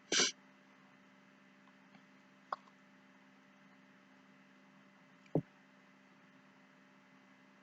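Faint steady electrical hum with three brief sounds: a short noisy burst right at the start, a sharp click about two and a half seconds in, and a dull knock about five seconds in.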